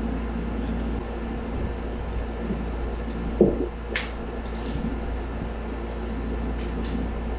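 Steady machine hum in a workshop, with a short knock about three and a half seconds in and a sharp metallic click just after.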